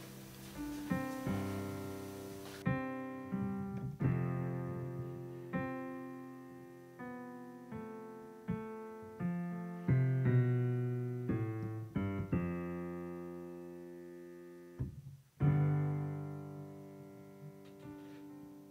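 Piano music: single notes and chords struck roughly once a second and left to ring out, with a louder low chord near the end.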